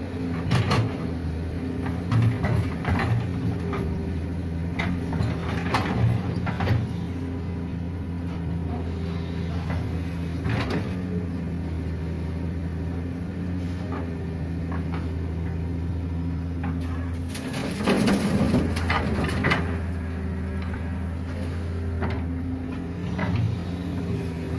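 Hitachi hydraulic excavator's diesel engine running steadily while it loads sand and stones into the steel bed of an Isuzu Elf dump truck, with scattered knocks and clatters. The loudest burst of clatter comes about 18 seconds in.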